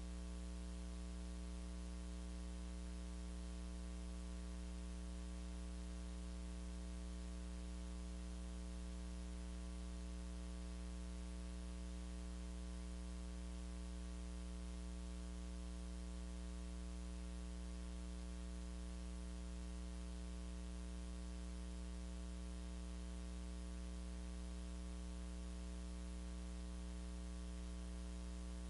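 Steady electrical mains hum with a ladder of overtones under a constant static hiss.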